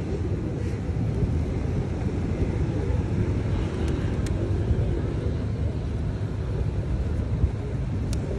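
Steady low outdoor rumble of wind on the microphone mixed with road traffic, with a couple of faint ticks near the middle and near the end.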